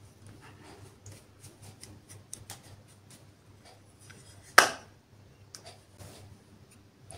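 Small plastic makeup palette case handled in the hands, giving light plastic clicks and taps, with one loud sharp click about two-thirds of the way through.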